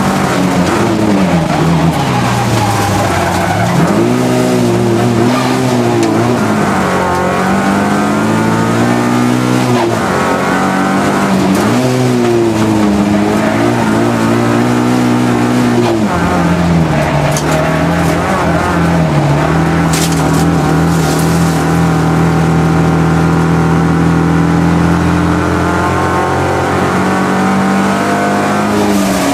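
Race car engine heard from inside the cockpit under hard driving, its pitch repeatedly climbing and dropping as it revs and shifts through the corners. Over the second half it holds steady at high revs for a long stretch, then climbs again near the end.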